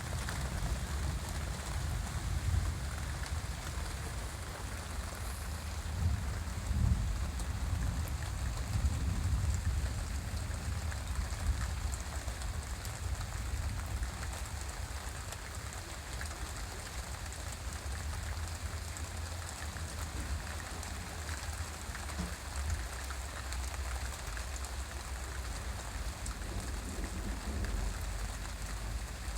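Rain falling steadily during a thunderstorm, many drops pattering on surfaces, over a low rumble that runs throughout.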